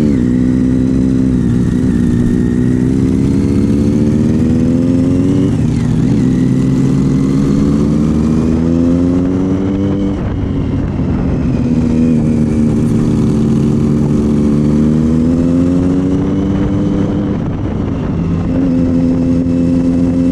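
Triumph Street Triple's inline three-cylinder engine through a Leo Vince GP aftermarket exhaust, under way. The revs climb several times and drop back at each gear change, with a steadier stretch in the middle and a quick rise near the end.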